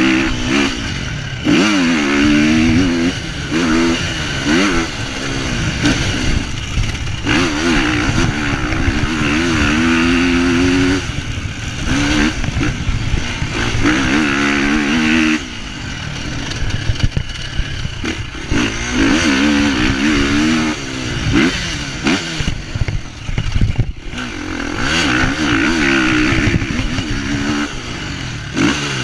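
Motocross bike engine ridden hard, revving up and easing off over and over, its pitch climbing and falling every second or two as the rider works the throttle and gears.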